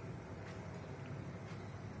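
Quiet room tone: a faint, steady low hum with no distinct event.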